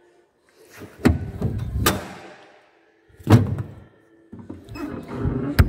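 A 1969 Jaguar E-Type's bodywork being handled: about four sharp knocks and thuds of its panels and lids being shut and pressed, the loudest two in the second half.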